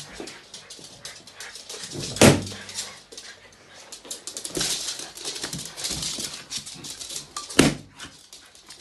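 West Highland white terriers scuffling with balloons: a steady patter of scratches and scrapes, broken by two loud sharp sounds, one about two seconds in and one near the end.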